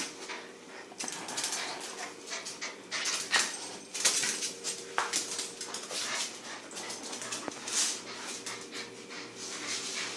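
Dog playing tug with a toy: irregular scuffles, rustles and breaths in short bursts as she pulls at it.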